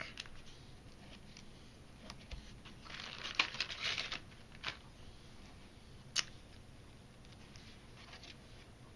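Paper-crafting handling sounds: foam adhesive dimensionals being peeled off their backing sheet and pressed on, with crinkling of the plastic packet and paper. There is a burst of rustling about three seconds in and a single sharp tap around six seconds.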